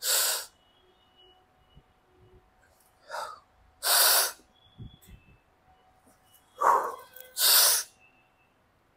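A man breathing hard through bar dip repetitions. There is a sharp breath at the start. Then, about every three and a half seconds, comes a short breath followed by a longer, louder one, one pair per repetition.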